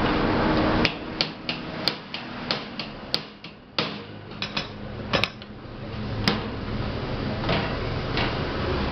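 Irregular sharp metal taps and clicks, about a dozen between one and six seconds in, from the hinge pin and sheet-metal door of an electric oven being pushed and worked by hand. The door is warped and does not close properly.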